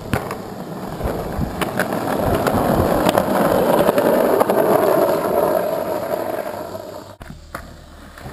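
Skateboard wheels rolling down a concrete driveway: a gritty rumble with occasional clicks that grows louder to a peak midway, then stops abruptly about seven seconds in.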